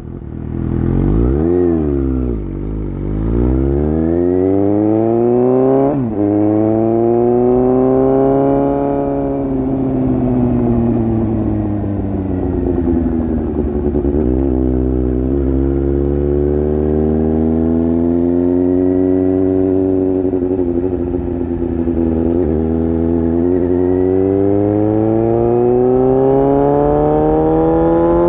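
Suzuki GSX-S750 inline-four engine running through an exhaust with its dB killer removed. The engine pitch climbs and falls slowly under throttle and when easing off, with a few quick pitch flicks at gear changes.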